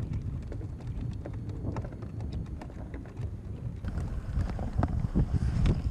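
Wind buffeting the microphone in a low rumble, with water splashing and lapping against a kayak in many small, irregular ticks, a little louder near the end.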